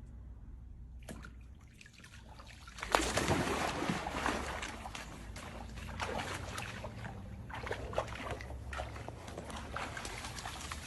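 Water splashing and sloshing, starting suddenly about three seconds in and going on with irregular spatters.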